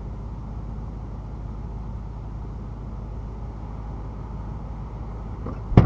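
Stationary vehicle's engine idling as a steady low rumble, heard from inside the cab. A single sharp knock comes near the end.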